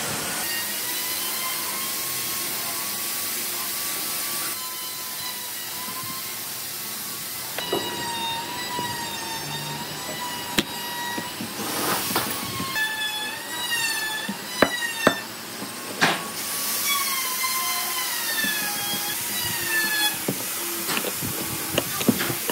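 A high motor whine that wavers up and down in pitch over a steady hiss, with a few sharp metal clicks in the second half.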